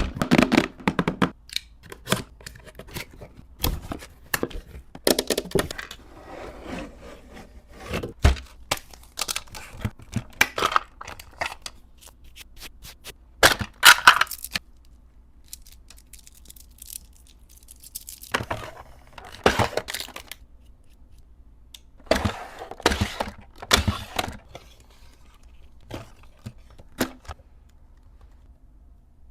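Close-up unboxing sounds: makeup packaging and plastic cases being handled and opened, giving irregular sharp clicks and taps mixed with rustling, scraping bursts of a second or so, with short quiet gaps.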